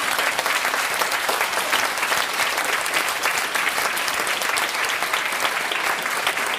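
An audience applauding, with dense, steady clapping.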